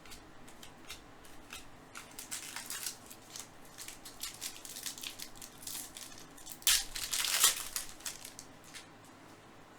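Baseball trading cards being handled and slid past one another: a run of soft rustles and slides, with a louder rustle lasting about a second, about seven seconds in.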